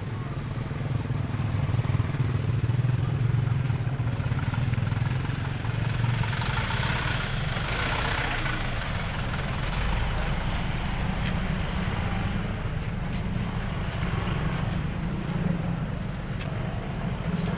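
Slow road traffic running close by: the engines of a dump truck and motorcycles make a steady low hum, swelling louder about seven to nine seconds in as a vehicle passes.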